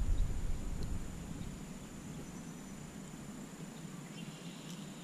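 Quiet outdoor background noise with a faint, steady high-pitched tone and a few faint short chirps near the end. A low rumble fades out in the first second or so.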